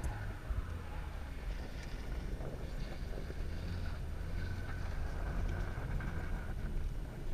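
Car driving over snow-covered ice, heard from inside the cabin: a steady low engine and tyre rumble, with wind noise from the open side window.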